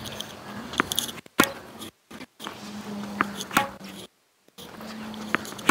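A tennis ball bouncing once on a hard court and then struck with a racket forehand about half a second later, three times over. Brief dead-silent gaps break it up, and a faint steady hum runs under it.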